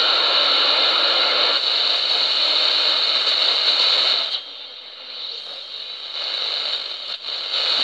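Modified shortwave radio receiver tuned to the 27–29 MHz band, hissing with static through its small speaker. About four seconds in the hiss drops sharply and stays lower, then swells back near the end.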